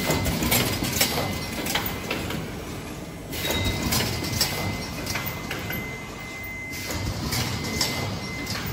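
Automatic packaging-line machinery running: conveyors and mechanisms clatter with irregular clicks and knocks over a steady running noise and a faint steady high tone. The sound changes abruptly about three seconds in and again near seven seconds.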